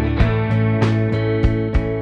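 Background music with a steady beat of plucked or strummed guitar notes, about three a second.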